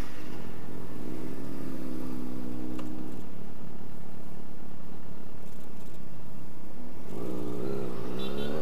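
Sport motorcycle engine running at low speed as the bike pulls away, then revving up about seven seconds in, its pitch wavering and rising with the throttle.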